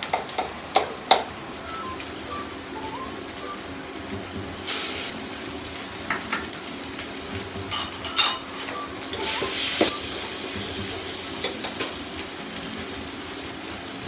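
Butter sizzling in a hot frying pan while a utensil clinks and scrapes against the pan, stirring it. There are sharp clinks in the first second, then a steady sizzle with a few louder scraping stirs.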